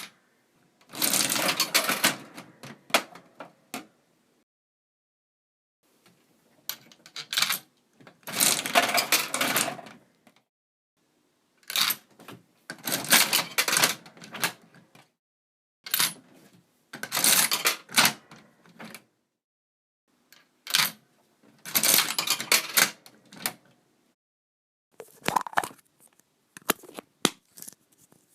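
Yujin Slim Boy gachapon capsule-toy machine: coins dropped in and the handle turned with a ratcheting, clicking clatter, about six takes in a row with short pauses between them.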